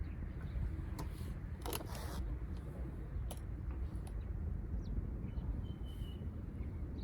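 Outdoor ambience: a steady low rumble, with a few sharp clicks between about one and two and a half seconds in and a short high chirp about six seconds in.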